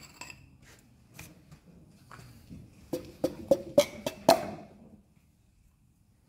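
Sharp metal clinks, about six in quick succession around three to four seconds in, each with a brief ringing, as a connecting rod and its cap are fitted onto the crankshaft journal of a Holden V8 block. A few lighter clicks come before them.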